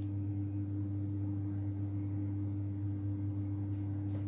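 A steady low hum with nothing else standing out above it.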